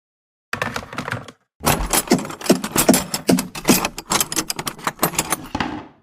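Foley sound effect of rapid clattering and rattling: a short burst of clicks about half a second in, then, after a brief gap, a dense run of quick knocks and rattles lasting about four seconds.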